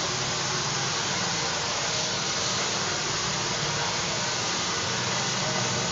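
Handheld hair dryer running steadily while blow-drying long hair: an even rush of air over a low motor hum.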